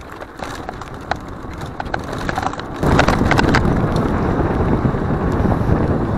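Mountain bike riding over a rough trail: wind buffeting the microphone, with scattered clicks and rattles from the bike. About three seconds in the wind rumble suddenly gets much louder and stays that way.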